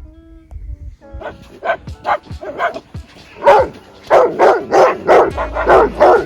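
A dog barking over and over in a quick run of about three barks a second, louder from about halfway through.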